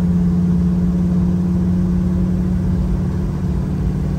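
1976 El Camino's engine and exhaust droning steadily at an even cruising speed, heard from inside the cab with road rumble underneath; the pitch holds level throughout.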